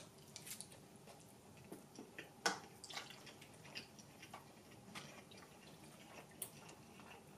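Quiet, wet chewing of a mouthful of crab-stick nigiri: scattered small mouth clicks and smacks, the loudest about two and a half seconds in.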